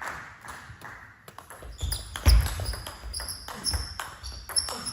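Table tennis ball clicking sharply off bats and table in an irregular series during a rally, with a few short high squeaks later on.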